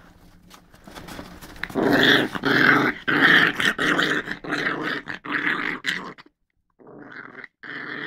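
Dog growling: a long, unbroken growl starting about two seconds in, a short break near the end, then shorter growls. The growl is a sign of the dog being annoyed.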